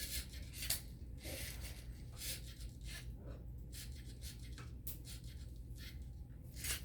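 LEGO Mindstorms NXT robot arm's motors and gears running in short starts and stops, faint scraping and clicking, over a steady low hum.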